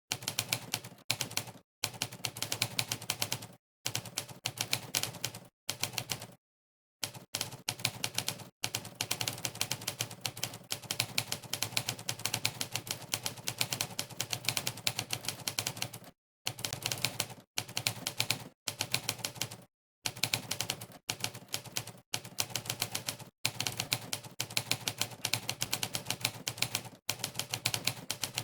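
Typewriter key-strike sound effects, one per keypress, clicking rapidly at several a second in quick runs, broken now and then by short pauses of dead silence.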